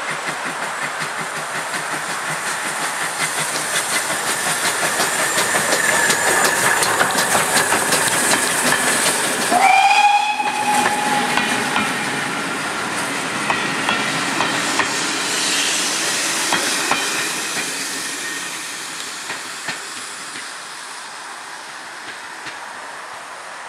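GWR 14xx 0-4-2T tank locomotive No. 1450 working hard past, with rapid regular exhaust chuffs growing louder. It sounds its steam whistle once, about ten seconds in, for about two seconds. The coaches then roll by with wheel clatter on the rail joints, fading away.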